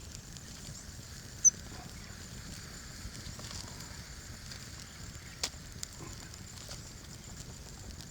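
Outdoor ambience: a steady high hiss over a low rumble, with one sharp, short click about a second and a half in and two fainter clicks around the middle.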